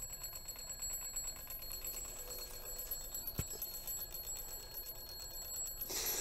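Mechanical alarm clock ringing steadily, its hammer striking the bell many times a second, with one soft knock about three seconds in.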